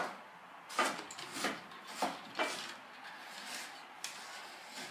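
A kitten's claws rasp on the woven cane back of a chair as it climbs up it: about half a dozen short, uneven scratchy scrapes.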